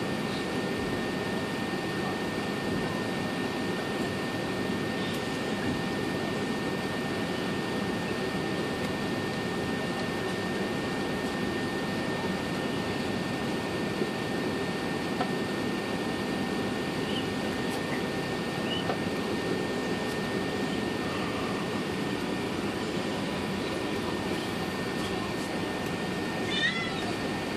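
Steady cabin noise inside an Airbus A380 taxiing, a low even rush of engines and air conditioning with a faint steady whine. A few brief high-pitched squeaks come through, the loudest a short wavering squeal near the end.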